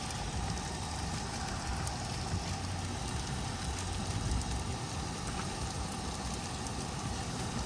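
Steady low mechanical rumble, like an engine running at idle, with no strokes or breaks.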